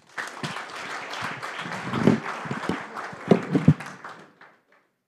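Audience applauding, dying away about four and a half seconds in, with a few low knocks partway through.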